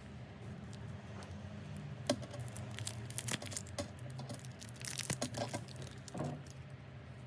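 Light metallic clinks and taps from handbag metal hardware being handled: a sharp click about two seconds in, then two short clusters of clinks.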